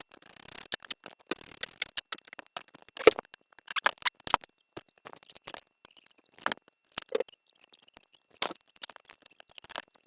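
Irregular clicks, knocks and light scrapes of the Range Rover L322 air suspension compressor pump and its housing being handled and worked loose from the cradle and mounting rubbers.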